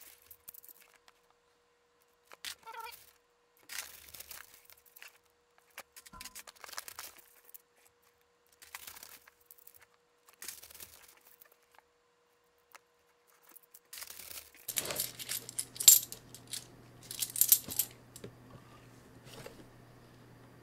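Kennedy half dollar coins clinking against each other in short scattered bursts as handfuls are grabbed and shuffled, the busiest and loudest clatter coming near the end. A steady low hum comes in about three quarters of the way through.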